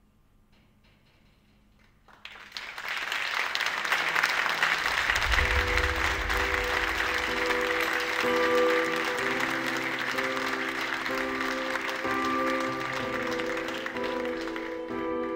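Audience applauding, starting suddenly about two seconds in and dying away near the end. Music with held chords and a low bass comes in underneath a few seconds later.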